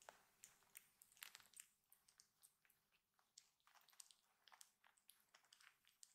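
Near silence, with faint scattered soft clicks and rustles from tiny kittens squirming and nuzzling in a person's cupped hands.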